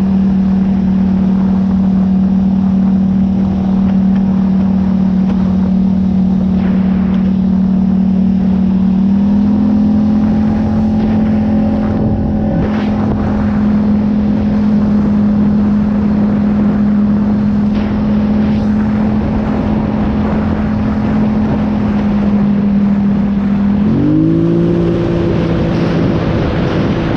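A vehicle's engine running steadily while driving, over a constant rush of noise. The engine pitch steps up slightly about a third of the way in, then climbs quickly to a higher, steady speed near the end.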